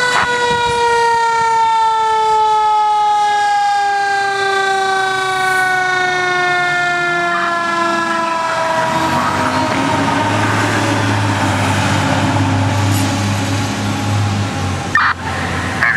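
Fire engine's mechanical siren coasting slowly down in pitch over about eight seconds as the pumper pulls out, then the truck's engine rumbling low as it accelerates away. A sharp knock comes near the end.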